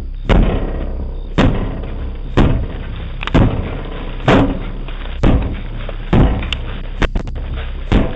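A door being struck hard again and again, about one heavy blow a second, as burglars try to force it open with tools.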